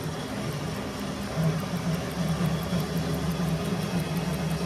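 Mini-lathe driven by a 1 hp sewing-machine servo motor running, its 5-inch chuck spinning pipe: a steady motor-and-drive hum that grows a little louder about a second and a half in.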